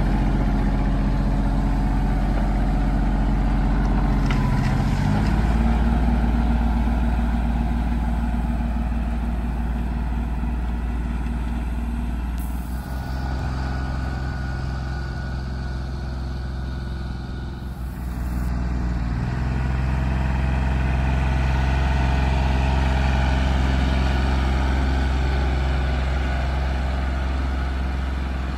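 Compact farm tractor engine running steadily under load while it pulls a bar of disc hillers through loose soil to cover a potato row. The engine hum shifts in pitch a few times.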